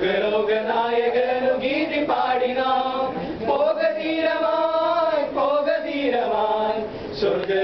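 A male vocal group of young men singing together unaccompanied, moving through long held notes in a slow church song.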